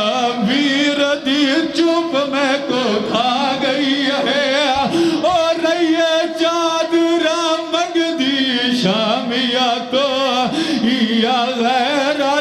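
A man chanting a mournful Shia majlis lament (masaib) in a high voice with a strong vibrato, holding long notes between short breaths.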